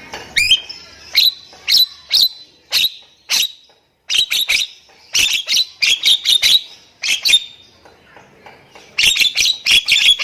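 Nias hill myna (jalak nias) calling: a long series of short, sharp, high notes, often in quick clusters, with a pause about halfway through and a dense run near the end.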